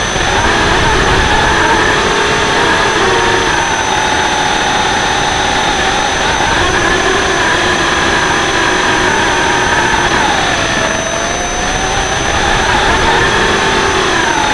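Hubsan X4 mini quadcopter's motors and propellers buzzing in flight, their whine shifting in pitch with throttle. It dips noticeably about ten seconds in, then climbs back.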